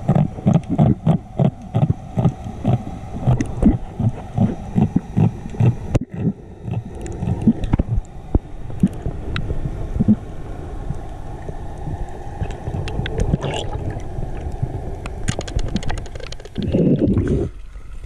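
Muffled underwater sound picked up by a diving camera: a quick series of low thumps for the first several seconds, then a steady rush of water with scattered clicks, and a loud splash of water as the camera breaks the surface near the end.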